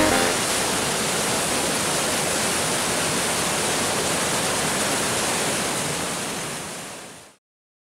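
Fast, churning river water rushing through a concrete channel, a steady rushing that fades out near the end.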